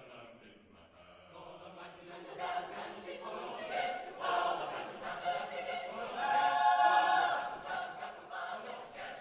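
Choir singing, swelling from soft to a loud held chord about six to seven seconds in, then easing off.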